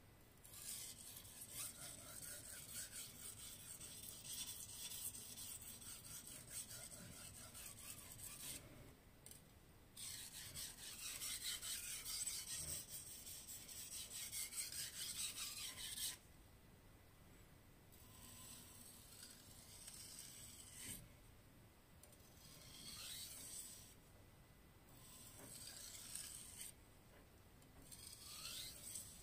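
Aogami Super steel petty knife blade ground back and forth on a wet #1000-grit Imanishi Arashiyama whetstone, a gritty scraping hiss of rapid strokes. It goes in a long run, breaks off about nine seconds in, and returns louder. After about sixteen seconds it continues in shorter, quieter runs with brief pauses between them.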